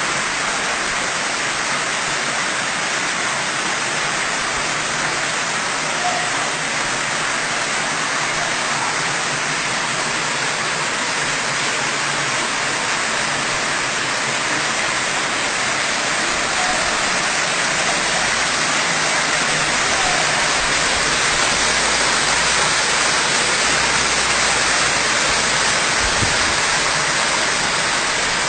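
Water from an artificial rock waterfall fountain pouring over three stone ledges into its basin: a steady, even splashing rush.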